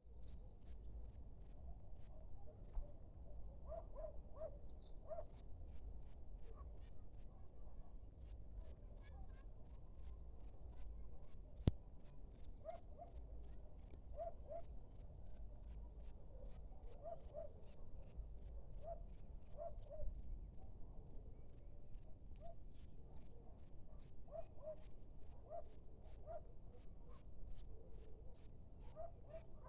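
Cricket chirping steadily, short even chirps on one high pitch at about three a second, with a couple of brief pauses. A single sharp click is heard about twelve seconds in.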